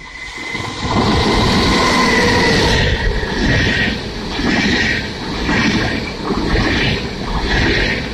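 Passenger train hauled by an electric locomotive passing close by: a high whine falls slightly in pitch as the locomotive goes past, then the double-deck coaches' wheels rumble over the rails with a rhythmic clatter about once a second.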